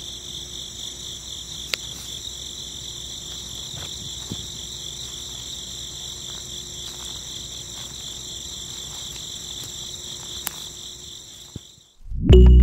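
Crickets chirping in a steady, high-pitched trill, with a couple of sharp clicks about two seconds in and near the end. Music starts loudly right at the end.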